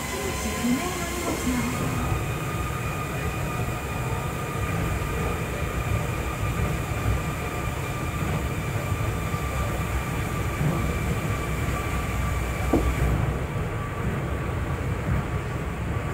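Osaka Monorail train running at speed, heard from inside the car: a steady low rumble from the rubber-tyred straddle-beam running gear, with steady high whines from the electric drive.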